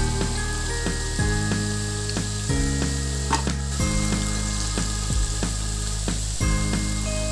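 Battered squid rings deep-frying in hot oil, a steady sizzling and bubbling as they are turned with a metal spatula. Background music with held bass notes and a steady beat plays over it.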